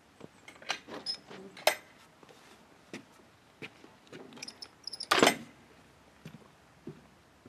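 A wooden gate being pushed open and knocking against its frame as a person steps through, with footsteps and small taps. There is a sharp knock about a second and a half in, and the loudest knock a little after five seconds.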